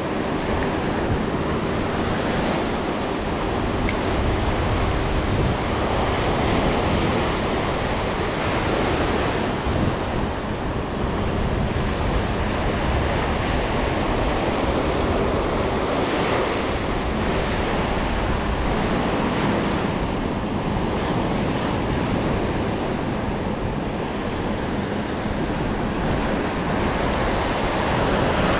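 Ocean surf washing up and back over a sandy beach in a steady wash, with wind rumbling on the microphone.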